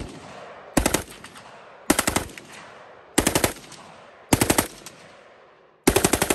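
Fully automatic gunfire in short bursts: four quick bursts of about four to six rounds each, a little over a second apart, each ringing away between them, then a longer burst starting near the end.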